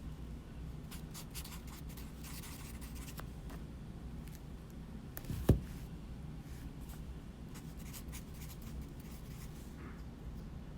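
Faint scratching and rustling handling noises with scattered light clicks over a low hum, and one sharp knock about halfway through.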